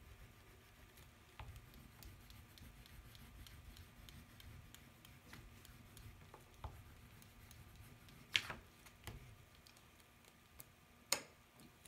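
Faint scratching of colouring on paper, with scattered light ticks and two louder sharp clicks about eight and eleven seconds in.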